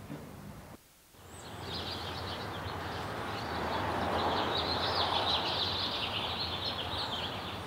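Outdoor ambience: a steady wash of background noise with many birds chirping high and fast. It drops out briefly just under a second in, then builds back up.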